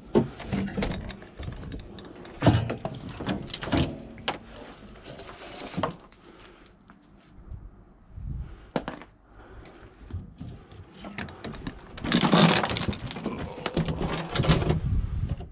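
Scrap metal being handled: irregular sharp knocks, clinks and rattles, with a louder rough scraping and rattling stretch lasting a couple of seconds near the end.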